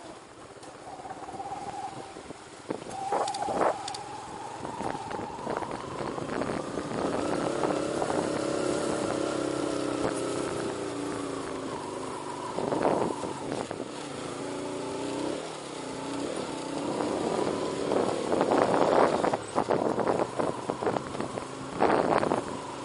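Motorcycle engine running on the move, its pitch rising slowly as it speeds up and falling again about two-thirds of the way through. Near the end it is joined by a heavier rushing noise, like wind on the microphone.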